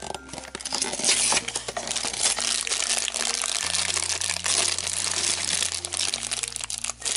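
Crinkly blind-bag toy packaging being torn open and crumpled by hand, a continuous crackle of small rustles and snaps that is loudest about a second in.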